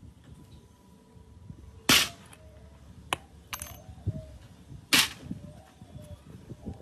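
Metal parts of an old Husqvarna chainsaw being handled during disassembly: two sharp metallic knocks about three seconds apart, with a few lighter clicks in between as the clutch drum comes off the crankshaft.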